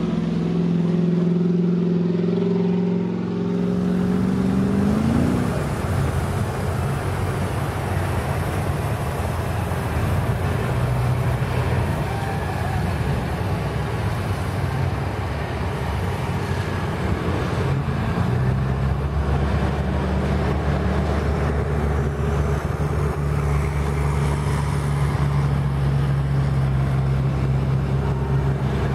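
Engines of an Argo amphibious 6x6 ATV and a Jeep running under load in deep mud and water. A steady engine note drops away about five seconds in, giving way to rougher churning, and a steady lower engine hum takes over in the second half.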